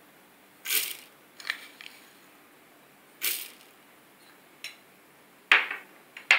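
Granulated sugar spooned into a plastic mixer-grinder jar over soaked almonds: several short bursts of grains hitting the jar, with a light click or two of the spoon.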